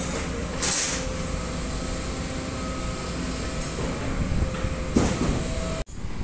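Steady low rumble of heavy diesel construction machinery running close by, with a short hiss about a second in and a single clank about five seconds in. The sound cuts out abruptly for a moment near the end.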